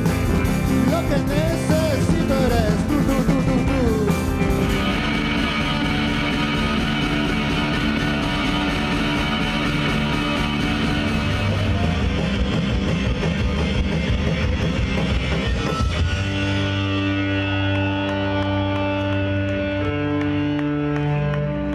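Rock music from a live band with electric bass, drums and a singer, changing about five seconds in to a fuller, steadier sound, and about sixteen seconds in to clean held notes that shift pitch near the end.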